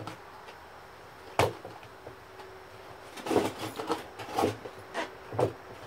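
Semi-automatic GSG AK-47-style .22 rifle firing 22 Short round-nose rounds: one shot about a second and a half in, then a quick string of four or five more shots from about three seconds in.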